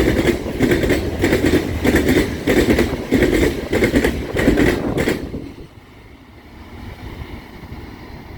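Loaded freight cars of a sand train rolling past, their wheels clattering over rail joints in a steady rhythm of about three beats every two seconds. About five seconds in, the last car passes and the clatter falls away to a faint low rumble.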